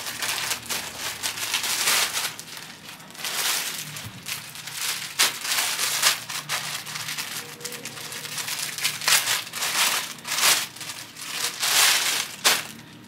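Plastic packaging crinkling and rustling in irregular bursts as a plastic courier pouch is torn open and a garment is pulled out of a clear plastic bag.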